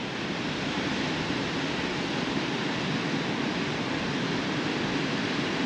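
Steady, even hiss of wind and surf.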